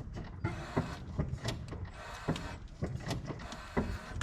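Irregular mechanical clicks and knocks, several a second, over a low rumble, as the car's brake pedal is pumped during brake bleeding.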